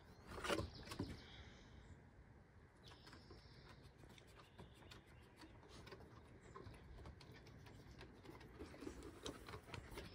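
Dog claws ticking faintly and irregularly on wooden deck boards as the dogs walk about, after one short louder sound about half a second in.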